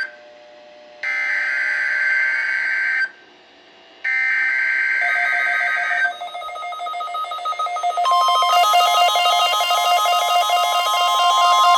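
Weather radio broadcast of an Emergency Alert System required weekly test: the SAME digital header repeats as harsh buzzy data screeches, each about two seconds long with a second's pause between, the last ending about six seconds in. As it ends, the weather radios start pulsing, ringing alert beeps, and about eight seconds in the steady, high warning alarm tone begins under them.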